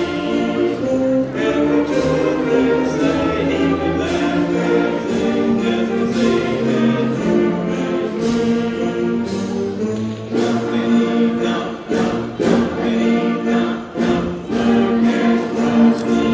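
School concert band playing a Christmas piece: sustained wind notes over evenly spaced percussion beats.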